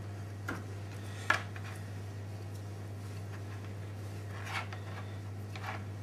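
A few short knocks and scrapes of a kitchen knife on a cutting board, the sharpest about a second in, over a steady low hum.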